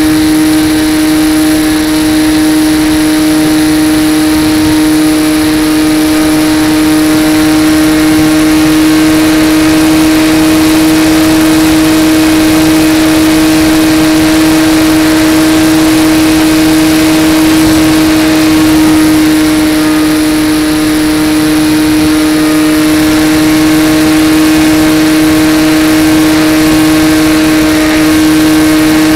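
Electric motor and propeller of a foam RC plane in flight, heard close up from on board: a loud, steady whine at one constant pitch with overtones, over a hiss of rushing air.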